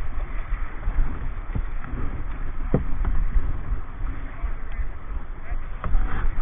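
Kayak moving down a river: rushing and splashing water around the hull, a few short knocks, and wind buffeting the microphone as a heavy low rumble.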